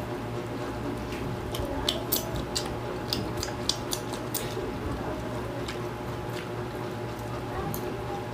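Close-up eating sounds: two people chewing fried fish and rice by hand, with wet mouth smacks and clicks, most of them in the first half.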